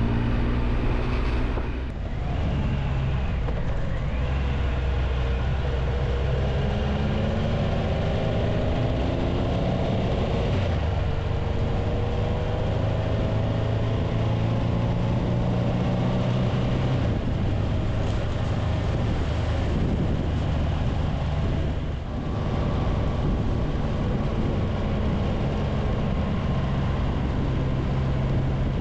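Triumph Tiger Explorer 1200's three-cylinder engine running under way, heard from the rider's seat with wind rushing past. The engine note rises and falls with the throttle, with two brief dips, about two seconds in and again about three-quarters of the way through.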